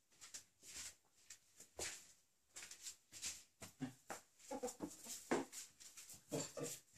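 A ferret at play makes faint, quick clucking chuckles in short bursts, mostly in the second half. Light taps and scuffs on a tiled floor run through it, from paws, a small ball and flip-flop steps.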